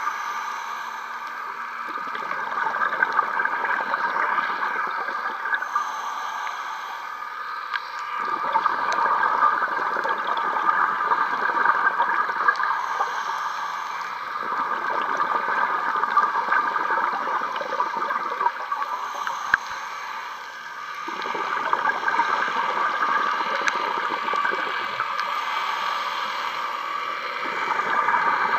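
A scuba diver's regulator breathing underwater: exhaled bubbles gurgle in bursts of several seconds, separated by short quieter pauses for each inhalation.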